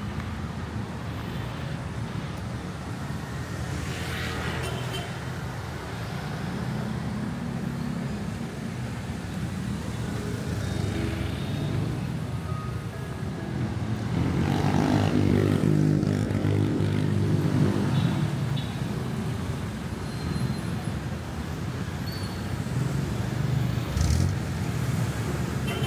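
Busy city street traffic: cars and motorcycles driving past in a steady low rumble, with one louder engine passing about halfway through.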